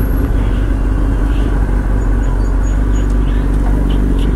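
Sport motorcycle's engine running at a steady cruise, under a constant low rumble of wind and road noise.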